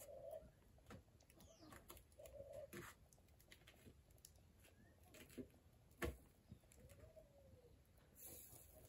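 A dove cooing faintly: a few short, soft, low coos spaced through, one near the end rising and falling. A sharp tap about six seconds in, with a few fainter taps.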